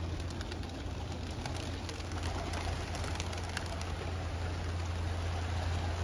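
A large flock of racing pigeons flapping their wings as they take off and circle, with many sharp irregular wing claps. A steady low hum runs underneath.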